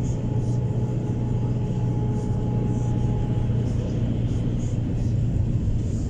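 Steady low rumble of a car driving along a road, heard from inside the cabin: engine and tyre noise.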